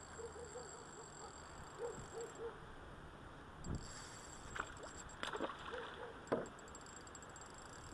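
A trout splashing at the water's surface near the fishing line: a dull low thud about halfway through, then a short run of sharp splashes over faint background noise.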